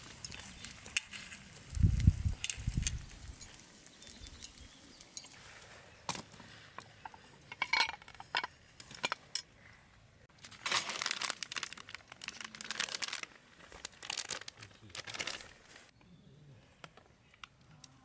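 Crinkling of wrapping or foil and light clinks of camp cookware and utensils being handled, in scattered bursts, with a couple of low thumps about two seconds in.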